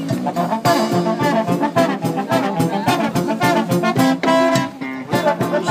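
Street band playing an upbeat jazz tune: trumpets and saxophone over guitar and drums, with a steady beat.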